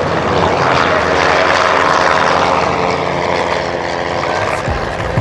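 Twin-engine Beechcraft propeller plane flying past: the engines' drone swells to its loudest about two seconds in, then falls away as its pitch drops.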